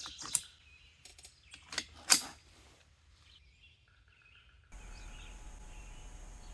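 Birds chirping, with three sharp clicks in the first couple of seconds; a steady background hiss comes in abruptly after about four and a half seconds.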